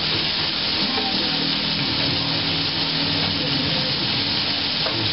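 Hot oil sizzling steadily in frying pans, with potato slices frying in one while a spatula turns them.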